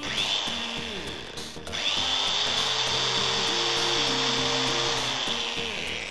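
Bosch GWS 670 angle grinder switched on briefly, spinning up to a high whine and slowing, then started again just under two seconds in. It runs steadily for a few seconds and winds down near the end. Background music plays underneath.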